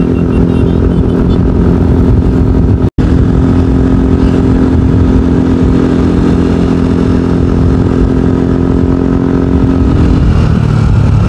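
Motor scooter engine running at a steady cruising speed, heard from on board over heavy wind and road noise. The sound cuts out for an instant about three seconds in, and the steady engine note breaks off near the end.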